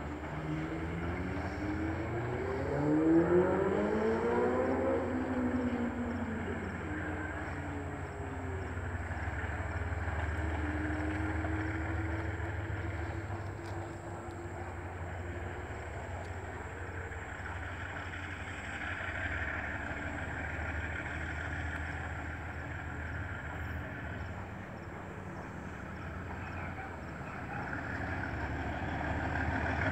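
A motor vehicle engine revs up over a few seconds and winds back down, over a steady low rumble. Fainter steady tones drift in and out afterwards.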